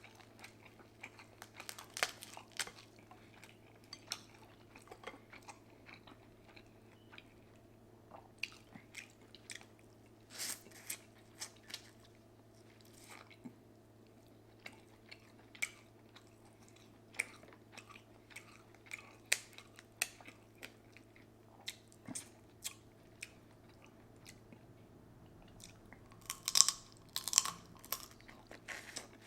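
A person chewing and biting food close to the microphone: wet mouth clicks and crunches, irregular, with a cluster of louder crunching near the end, over a faint steady low hum.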